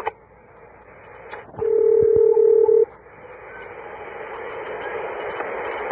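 Telephone-line sounds: a few handset clicks, then a loud steady tone for a little over a second. After it, a hissing open line slowly grows louder.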